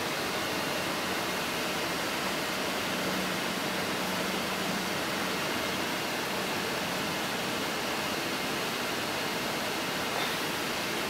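Steady, even rush of jet engine noise from an Emirates Boeing 777-300ER's GE90 turbofans.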